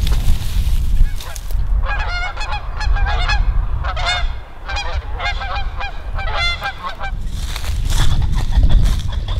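A small flock of geese honking repeatedly as they fly over, the calls coming thick for several seconds from about two seconds in, over a steady low rumble.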